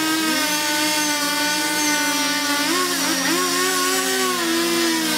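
Two-stroke chainsaw running at high revs as it cuts into a large log, its engine pitch dipping and wavering about three seconds in.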